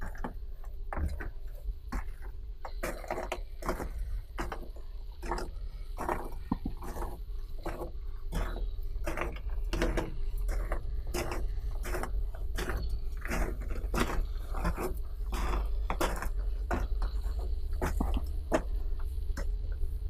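Irregular scuffing and clicking, two or three sounds a second, over a steady low rumble: footsteps on a gritty floor mixed with handling noise.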